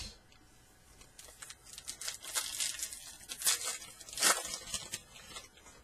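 A baseball card pack's wrapper being torn open and crinkled by hand: a run of crackling rips and rustles, the two sharpest tears at about three and a half and four seconds in.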